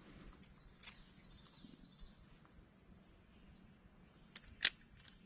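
Quiet creekside ambience with a faint, steady, high-pitched insect drone and a few soft ticks. One sharp click comes near the end.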